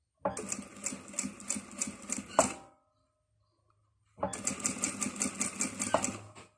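Industrial sewing machine stitching in two runs of about two and a half seconds each, with a pause of about a second and a half between them, its needle going with a fast, even rhythm.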